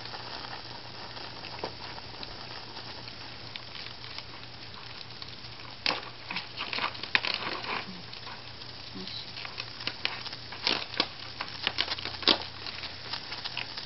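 Senko hanabi, a Japanese incense-stick sparkler, burning with scattered sharp crackles and pops from its sparks, in clusters about six seconds in and again around eleven to twelve seconds, over a steady hiss.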